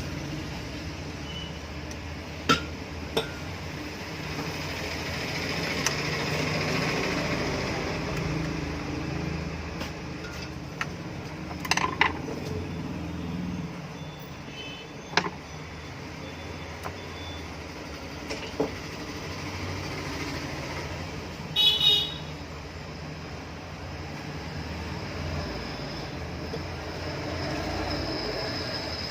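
Steady outdoor background noise with a few sharp clicks and one brief high vehicle-horn toot about three-quarters of the way through.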